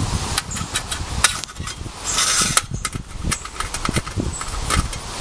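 Thin metal rods being pushed through small holes in a tin-can hobo stove, scraping and clicking against the can's sheet metal, with a longer scrape about two seconds in. A low rumble runs underneath.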